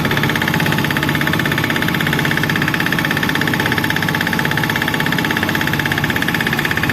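An engine running steadily at constant speed, with a fast, even pulsing beat.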